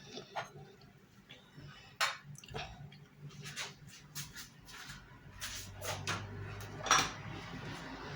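Scattered clinks and knocks of kitchen utensils and dishes being handled, growing busier in the second half, with a faint low hum coming in about halfway.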